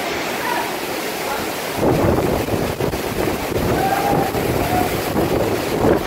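Waterfall pouring onto rocks close by: a steady rushing of water, with voices calling faintly over it.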